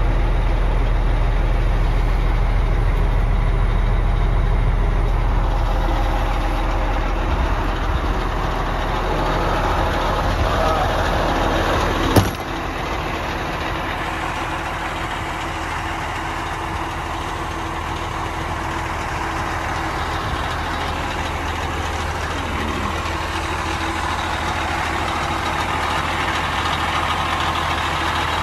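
1997 Freightliner FLC112 wrecker's diesel engine idling steadily, first heard from inside the cab. About twelve seconds in, the cab door shuts with a single sharp bang, and the idle is a little quieter after it.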